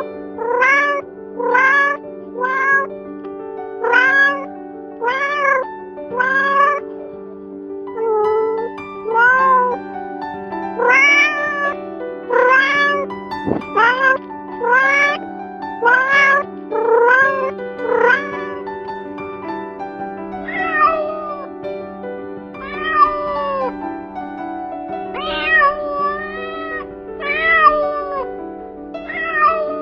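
Domestic cat meowing over and over, each meow rising then falling in pitch, about one a second at first and more spaced out in the second half, over background music with long held notes.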